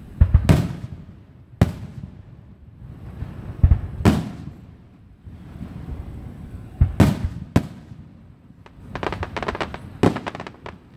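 Fireworks going off: a series of loud bangs a second or more apart with rumbling echo between them, then a quick run of crackling pops about nine seconds in.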